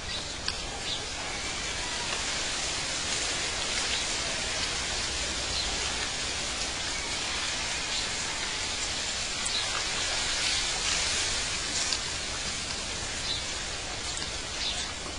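Steady rushing, hissing nature ambience like running water, with a few brief high ticks scattered through it.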